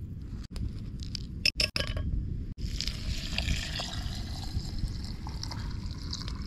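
Tea poured in a steady stream from a teapot into a glass, after a couple of sharp clinks.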